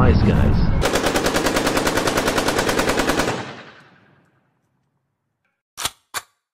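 A rapid burst of automatic machine-gun fire, as a sound effect, lasting about two and a half seconds and then echoing away. A low rumble under the opening stops about a second in. Two short clicks follow near the end.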